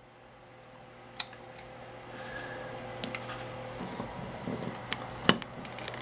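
Small metallic clicks and clatter of lock-picking tools and a deadbolt lock cylinder being handled in a bench vise, with a sharp click about a second in and a louder one near the end, over a faint steady hum.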